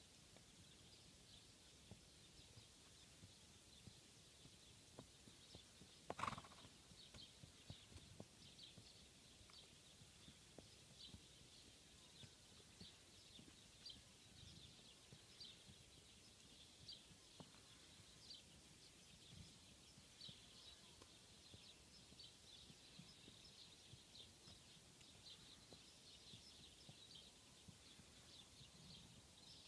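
Quiet paddock with faint, continual high chirping and soft low thuds. About six seconds in comes one short horse call, a brief neigh that is much the loudest sound.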